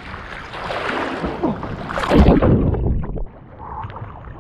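Water splashing and sloshing as a person swims across a river channel, with the camera at the waterline; loudest about two seconds in, then dropping to quieter lapping just after three seconds.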